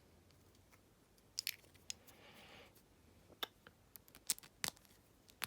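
Faint scattered clicks and scrapes of stripped electrical wires being handled and twisted together in a plastic wire nut, with a short rustle about two seconds in.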